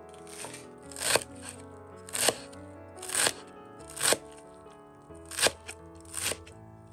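Chef's knife chopping fresh dill and green onions on a wooden cutting board: crisp, crunchy cuts about once a second, over soft background music.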